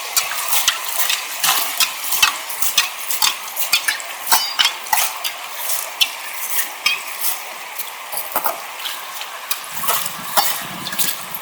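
Rapid, irregular clicking and clattering of small hard objects knocking together, several knocks a second, over a steady hiss.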